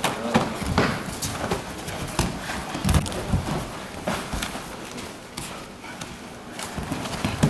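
Irregular thuds and knocks of two fighters grappling on tatami mats, bodies, knees and gloved hands striking the mat and each other.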